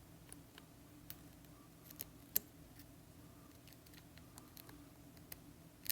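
Faint, scattered small clicks of a lock pick and tension wrench working the wafers inside an Illinois DUO wafer padlock, with a sharper click a little over two seconds in. The pick is setting the side wafers one by one.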